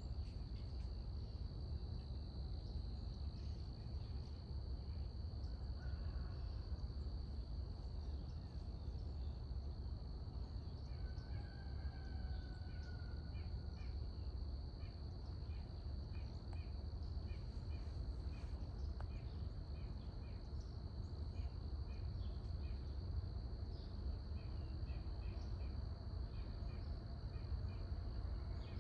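An insect chorus trills as one steady high tone under a low background rumble. From about halfway through, a bird calls in short, repeated chirps, with a brief whistled note just before.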